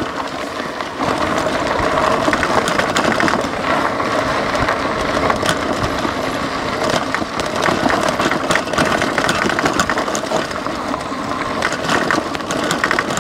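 Lectric XP 3.0 e-bike rattling over a rough, rocky dirt trail: its fat 3-inch tyres crunch on gravel and stones while the bike clatters with frequent sharp knocks and clicks.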